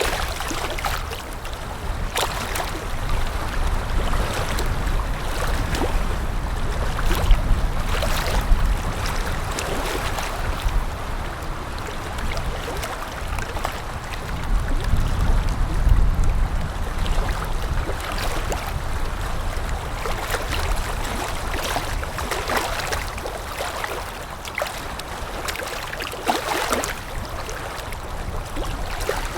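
Small wind-driven waves lapping against a shore: a steady wash broken by irregular little slaps and splashes that swell and ebb, over a low rumble.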